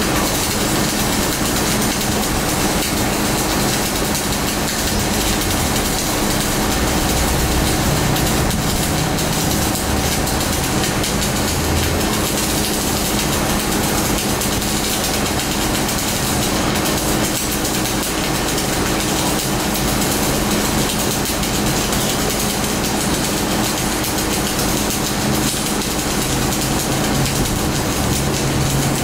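Electric arc welding running continuously: the arc's steady noise over a steady low hum from the welding equipment.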